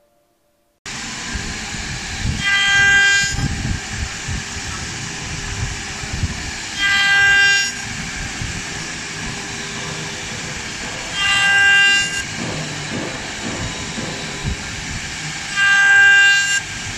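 CNC wood lathe router spindle running with a steady whine, starting about a second in. Four times, about every four and a half seconds, the fluting bit cuts into the turned wooden spindle, each cut a louder, higher whine lasting about a second.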